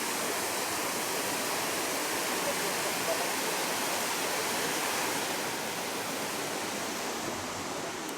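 Nachi Falls, a tall waterfall, pouring steadily: an even rush of falling water, easing off slightly toward the end.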